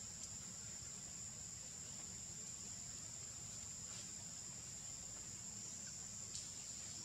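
Insects droning steadily at a high pitch, with a couple of faint clicks about four seconds in and near the end.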